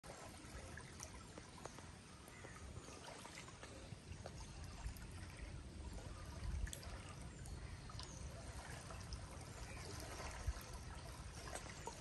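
Faint, steady lapping and trickling of small ripples washing against the shore, with small scattered splashes.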